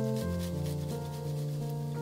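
Garlic clove rubbed across a flat metal hand grater, rasping strokes that fade soon after the start, under background music of held chords.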